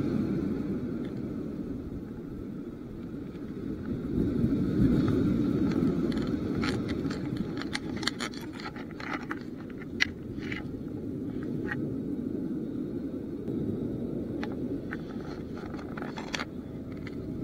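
Sea waves surging and washing against the concrete tetrapods of a breakwater, a steady low rumble that swells about four seconds in. From about six seconds in, a scatter of sharp clicks and taps.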